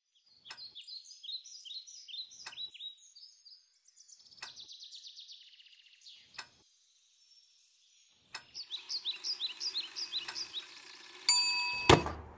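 Birds chirping, with a sharp click about every two seconds. Near the end a vintage flip alarm clock goes off at the hour with a bright ringing ding and a loud clunk.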